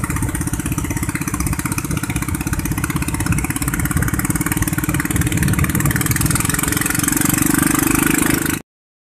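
Motor of a narrow wooden river longboat running at speed, a fast, even beat, a little louder towards the end before it cuts off suddenly.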